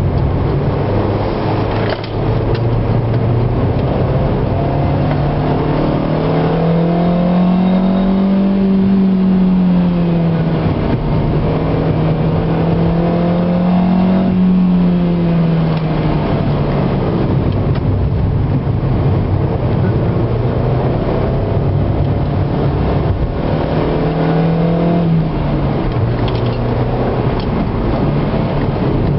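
Car engine heard from inside the cabin while lapping a circuit: it runs hard, its pitch climbing under acceleration and dropping back several times, twice around the middle and once near the end, over steady tyre and road noise.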